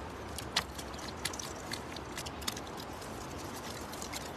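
Scattered soft clicks and ticks from a nylon cast net being worked free of fish on riverbank stones, over a steady background hiss.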